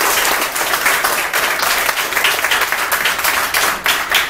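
Audience applauding: many hands clapping in a dense patter that thins to scattered single claps near the end.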